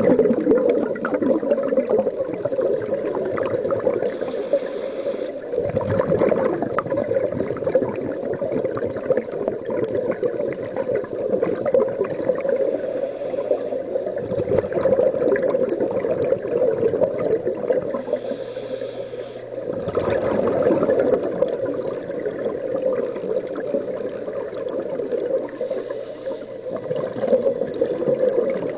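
Underwater sound of a swimming pool heard through a camera housing: a steady muffled rushing, with a few louder gurgling gushes of bubbles as scuba divers exhale through their regulators.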